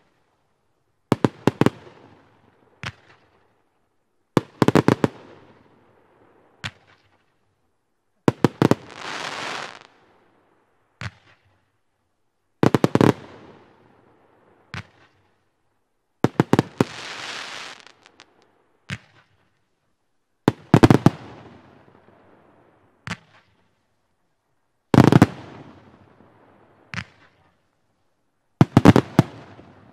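Valencia fireworks battery firing its shots: about every four seconds a quick cluster of sharp bangs, each followed about two seconds later by a single lighter report. Twice a hiss lasting about a second and a half follows the bangs.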